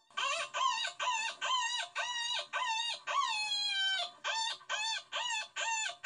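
A chicken calling over and over in quick, evenly spaced high notes, about two or three a second, with one longer call that falls in pitch about three seconds in.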